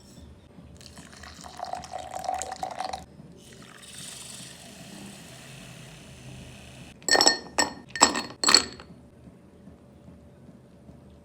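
Liquid, likely coffee, poured into a cup for about two seconds, then a softer, thinner hiss for a few seconds. Four quick, sharp ringing clinks against the cup follow, about seven seconds in.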